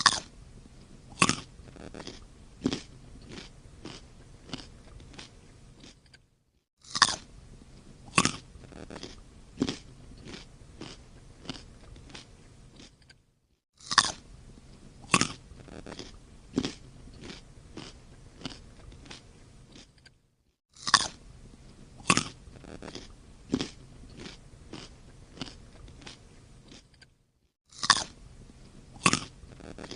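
Crunchy biting and chewing of sweets: two loud bites about a second apart, then a run of softer chewing crunches. The same six-second sequence repeats about every seven seconds, four times over, each separated by a brief silent gap, like a looped eating sound effect.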